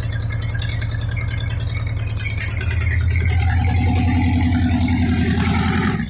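Freshly rebuilt 1972 Pontiac 350 V8 running steadily, stepping up louder about two and a half seconds in, then cutting off suddenly near the end.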